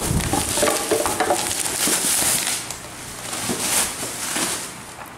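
Plastic bubble wrap crinkling and crackling as a wrapped engine is handled and lifted out of a cardboard box, busiest in the first half and quieter after.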